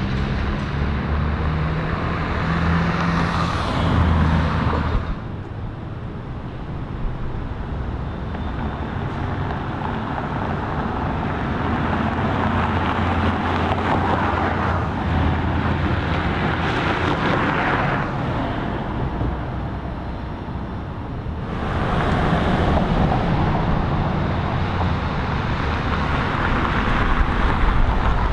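City street traffic: vehicle engines running and cars going by. The noise changes abruptly twice, about five seconds in and again a few seconds past the middle.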